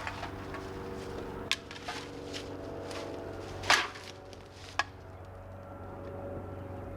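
Four or so sharp knocks, like wood being struck, the loudest a little before the middle, over a steady low drone of a distant engine.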